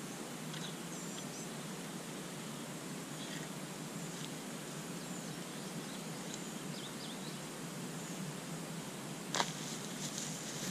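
Quiet open-field ambience with a few faint, high chirps from birds or insects, and a single short knock about nine seconds in, well short of gunshot loudness.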